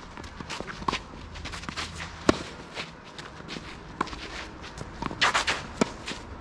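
Tennis players' footsteps on the court, with sharp knocks of the ball being struck roughly every one and a half seconds and a short scuffing slide of shoes about five seconds in.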